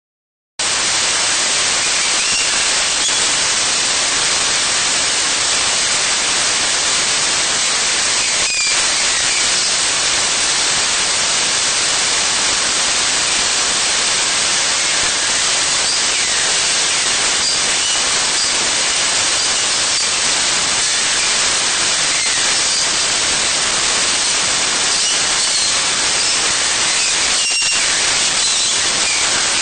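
A loud, steady static-like hiss with faint, brief high chirps scattered through it and a couple of short crackles.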